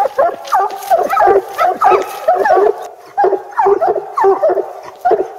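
Coonhounds barking treed: a rapid, unbroken run of short, choppy barks, several a second, the call that tells the hunters the raccoon is up the tree.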